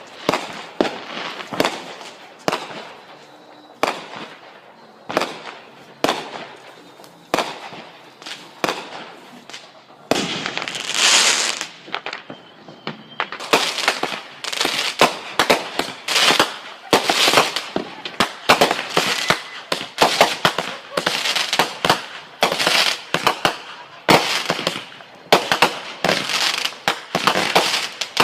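Fireworks going off in a rapid series of sharp bangs and crackles, the bangs coming thicker and faster about halfway through. A brief hissing burst comes shortly before that.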